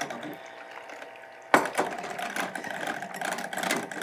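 Handheld electric mixer beating heavy cream in a glass bowl. About a second and a half in there is a sharp knock, after which the mixer runs louder, with quick clicks of the beaters against the glass.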